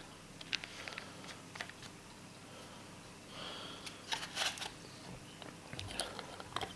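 Scattered light clicks and taps from handling the reagent bottles and test tube of an ammonia test kit, with a short soft rustle about halfway through and a cluster of sharper clicks just after it.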